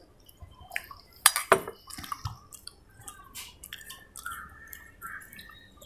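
Quiet eating sounds: chewing a mouthful of mushy, soupy instant noodles eaten by hand, with small wet clicks from the mouth. A sharp clink about a second and a half in, as the steel bowl is handled and set down on the wooden table.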